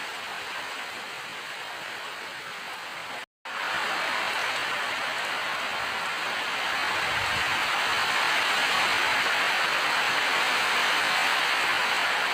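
Steady rain hiss. It cuts out completely for a moment about three seconds in, then comes back louder.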